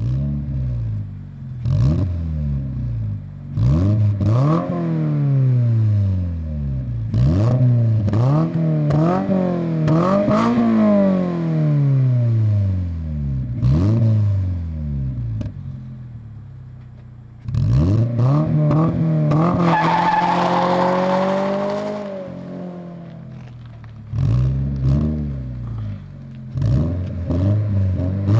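Flat-four sports car engine through an aftermarket exhaust, revving up hard and dropping back again and again as it is driven through the gears, with sharp pops between the pulls. About two-thirds of the way in there is a burst of tyre squeal.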